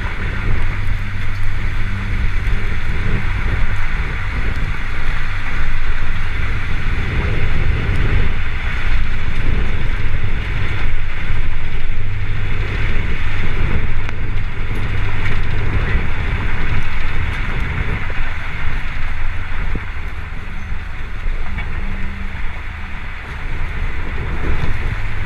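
Strong wind rushing and buffeting the microphone in gusts, over a steady low drone, in the field audio of a tornado intercept.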